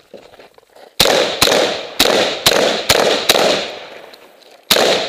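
Saiga 12 semi-automatic 12-gauge shotgun fired in quick succession: six shots in about two and a half seconds, a pause of over a second, then two more shots near the end, each with a short echo.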